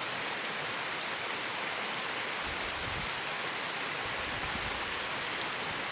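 Mountain stream flowing over the riverbed: a steady hiss of running water.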